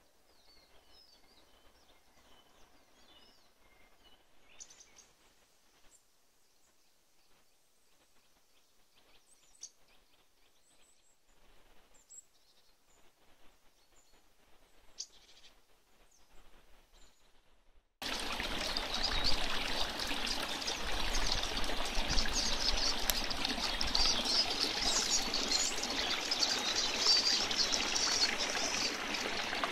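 Faint bird chirps over near quiet, then about eighteen seconds in, the steady sound of a small brook splashing over stones cuts in suddenly and much louder.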